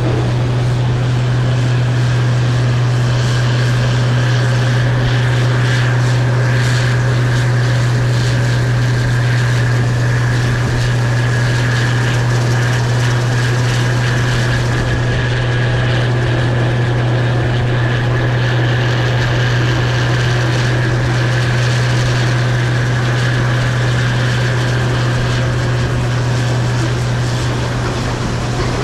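Case IH 2388 Axial-Flow combine running steadily while threshing soybeans: a constant deep engine drone with a fainter whine above it.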